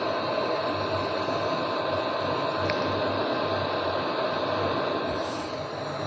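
Steady fan-like whir with a faint hum under it.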